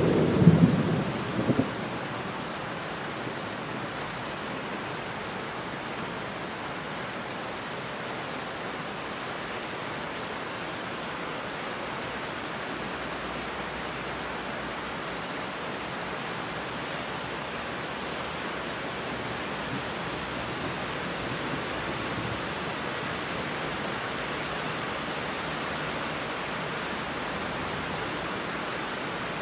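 Heavy rain pouring steadily on a road and trees, an even hiss that barely changes. A deep rumble fades out in the first two seconds.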